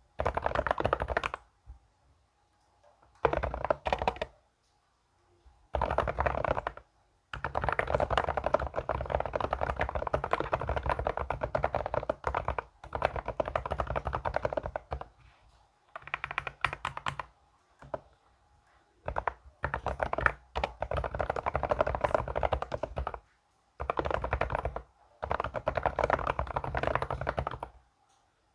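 Fast typing on a keyboard, a dense patter of keystrokes in runs of a few seconds broken by short pauses.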